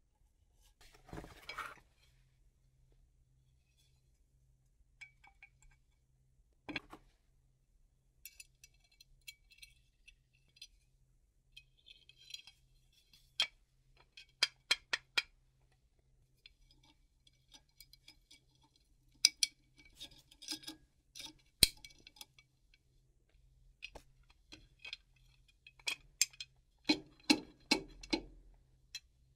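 Light metallic clinks and taps of hand tools and metal parts being handled, coming in scattered clusters of quick, sharp clicks. A faint steady hum runs underneath.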